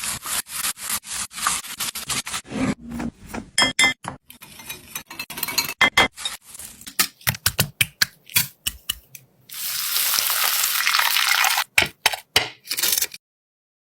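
Kitchen utensils clicking and scraping against cookware in quick succession, then about two seconds of food sizzling in hot oil, followed by a few last clicks.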